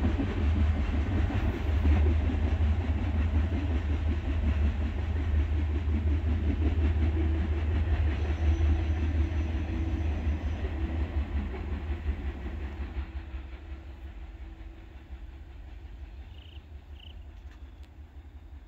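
Freight train's cars rumbling along the rails as the train pulls away, fading steadily over the last several seconds into a distant murmur.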